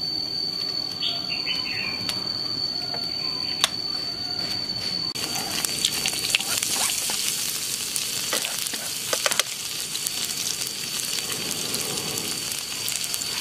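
Minced garlic frying in hot oil in a nonstick pan: the sizzling starts about five seconds in and carries on steadily, with a few light clicks.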